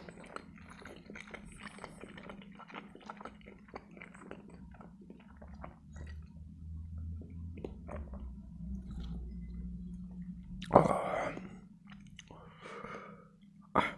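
Close-miked chewing of boiled pelmeni (meat dumplings), full of small wet mouth clicks. About halfway through it gives way to drinking from a glass, a low steady sound of gulps, which ends in a short loud sound about eleven seconds in.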